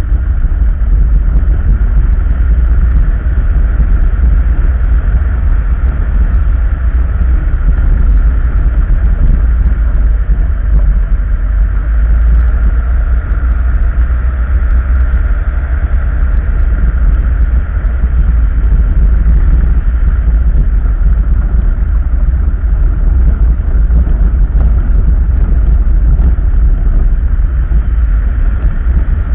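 Vehicle travelling steadily along a gravel road: a loud, unbroken rumble with a constant mid-pitched hum over it.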